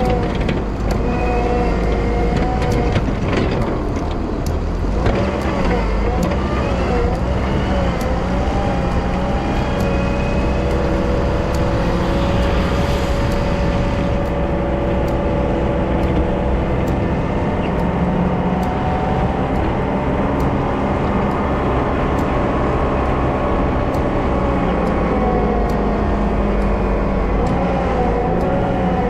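Wheel loader's diesel engine running steadily while plowing snow, with a whine that wavers up and down in pitch. A few knocks in the first five seconds.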